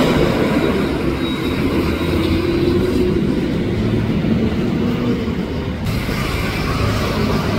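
Street traffic, with the diesel engine of an Ashok Leyland bus running steadily and a motor scooter passing at the start.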